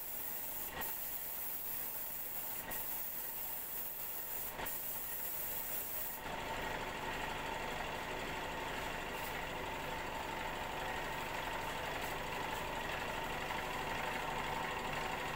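Compressed-air paint spray gun hissing steadily as black paint is sprayed. The hiss stops about six seconds in, leaving a steady machine hum, the air compressor running.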